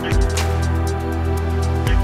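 Background music: an electronic track of sustained chords with a deep beat and quick, even high ticks.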